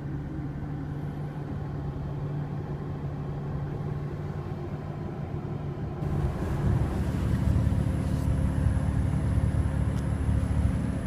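2015 BMW M4's twin-turbo inline-six running steadily with road noise. About six seconds in the sound changes abruptly and grows louder and fuller.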